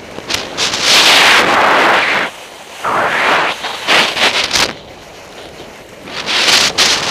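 Skis scraping across hard-packed snow in a series of turns: three loud hissing scrapes of a second or two each, with quieter wind noise on the microphone between them.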